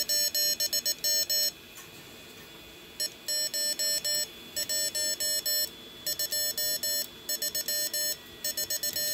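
Arduino iambic keyer's sidetone oscillator beeping fast Morse code through a small speaker as a single-lever paddle is worked: quick dits and dahs on one steady pitch, in runs of about a second with short gaps between them.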